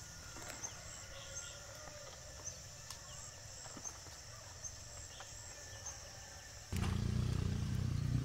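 Countryside ambience: a steady high-pitched insect buzz with short chirps repeating about once a second and a few faint light ticks. About two-thirds of the way in it gives way abruptly to a much louder low rumbling noise.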